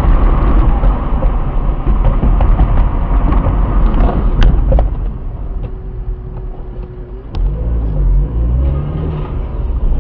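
Road and engine noise of a moving car picked up by a dash cam: a loud, steady low rumble with a few faint clicks.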